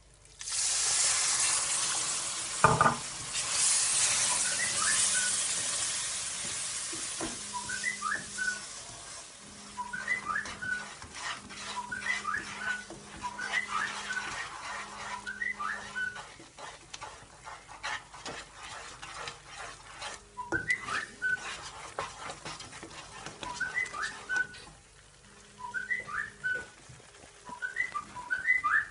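Hot oil and roasted semolina sizzling loudly as water goes into the wok; the hiss starts suddenly and dies down over several seconds, with a knock near the start. A wooden spatula then stirs and scrapes the thinning halwa, while repeated short high chirping whistles sound in the background.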